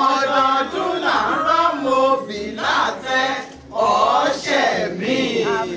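A woman chanting into a microphone in a sing-song voice, with held and sliding notes and no words in English.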